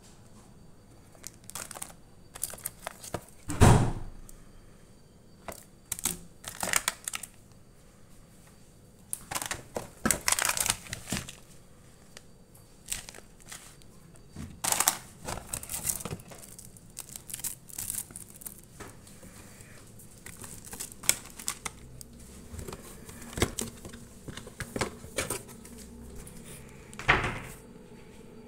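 Plastic snack packets crinkling and a cardboard box rustling as they are handled, in irregular bursts. There is a single heavy thump about four seconds in, and another loud rustle near the end.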